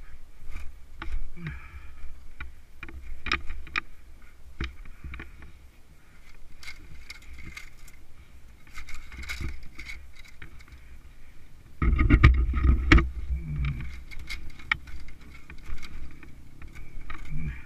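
Irregular clicks, rattles and knocks as the dirt bike is handled and wire and dry grass are pulled from around its rear wheel and chain, with a heavier cluster of knocks and rumble about twelve seconds in.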